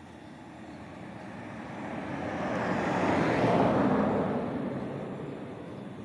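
A vehicle passing by: a rushing noise that builds over a couple of seconds, peaks a little past the middle, and fades away again.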